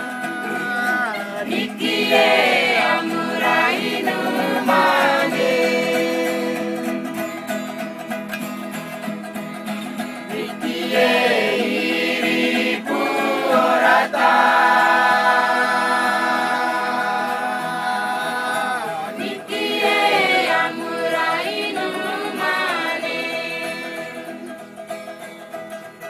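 A group of Kamoro people singing a traditional song together, voices holding long notes with pitch slides between phrases; it grows quieter near the end.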